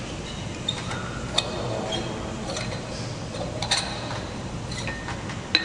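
Glass light bulbs clicking and clinking as they are handled in their porcelain sockets: several sharp ticks spread out irregularly, some with a short high ring.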